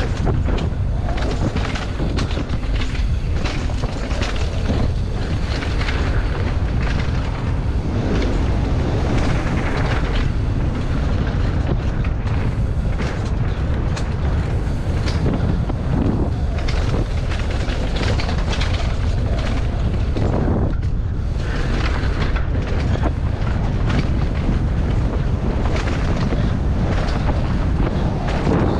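Wind buffeting the microphone of a rider-mounted camera on a fast downhill mountain-bike run, over a steady rumble of tyres on dirt and frequent knocks and rattles as the bike hits bumps.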